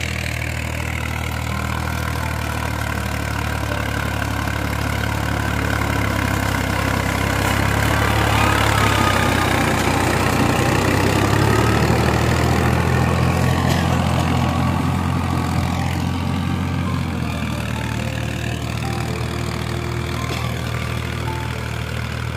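Tractor engine running steadily with a low, even drone. It grows louder toward the middle and eases off again near the end.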